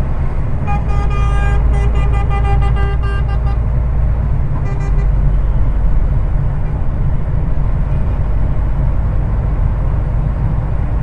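A vehicle horn sounds a rapid string of short toots for about three seconds, then one brief toot a second later, over the steady drone of a heavy truck's engine on the road.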